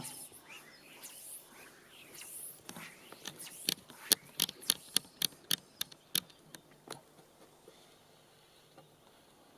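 Fly reel's click mechanism ticking as fly line is pulled off it for casting: a run of sharp, evenly spaced clicks, about three a second, lasting a few seconds and then stopping.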